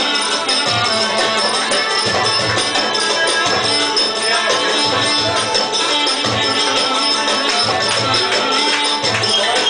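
Folk dance music with a steady drum beat, about two beats a second, under a wavering melody and bright jingling percussion like a tambourine.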